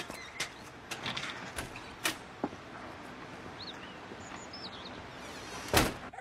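Outdoor background noise with scattered clicks and knocks, a few faint bird chirps, and one loud sharp knock near the end.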